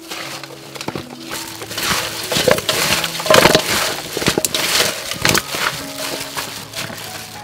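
Raw duck feet being mixed by hand with seasonings in a stainless steel bowl: irregular wet squishing and rustling of plastic gloves, loudest in the middle, over soft background music.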